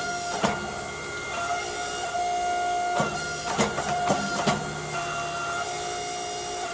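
Riverside Machine hydraulic forging press running, its pump making a steady whine whose tone switches on and off as the ram loads, with several sharp clanks as the white-hot canister Damascus billet is squeezed at welding heat.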